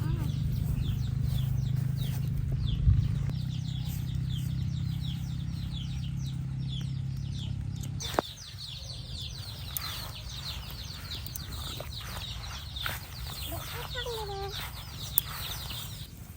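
Chickens: rapid, high peeping calls throughout, with a few lower clucking calls near the end. A steady low hum runs underneath for the first half and stops abruptly about eight seconds in.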